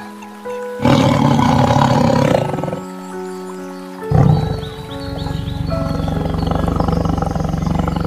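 A tiger roaring over soft background music: a short, loud roar about a second in, then a longer, pulsing growl from about four seconds in.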